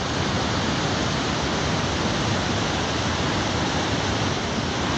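Floodwater of a swollen river rushing past in a steady, unbroken torrent of water noise.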